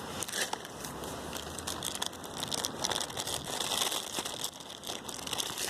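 Plastic food packaging crinkling and rustling as it is handled, a dense run of small crackles.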